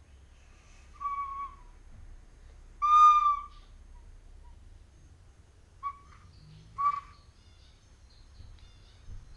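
A toddler blowing a wooden flute: four separate single notes, all at about the same pitch. The one about three seconds in is the longest and loudest, and the last two, near six and seven seconds, are short toots.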